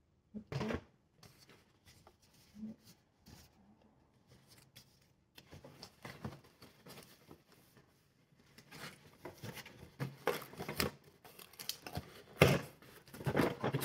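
Hands opening a taped cardboard shipping box: irregular scraping, rustling and tearing of cardboard and packing tape, sparse at first and busier and louder over the last few seconds.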